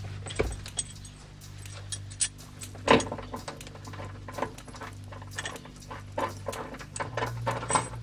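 Irregular metallic clicks and clinks of a steel seat-belt mounting bracket and its bolt being handled and set against a car's rear parcel shelf, the sharpest knock about three seconds in, over a low steady hum.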